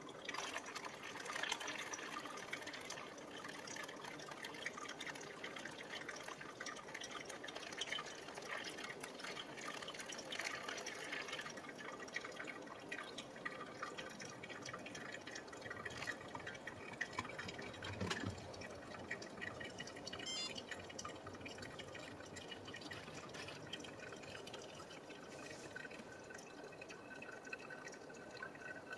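Hot water poured in a thin stream from a gooseneck kettle onto the wet coffee grounds in a paper-lined Hario V60 dripper, with brewed coffee trickling and dripping through the filter into the vessel below.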